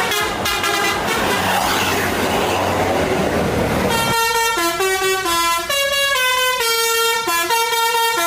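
Basuri telolet horn on a bus playing a melody. For the first four seconds a blaring, mixed sound runs over the engine's low hum. About four seconds in, the tune turns clear, in held notes that step up and down in pitch.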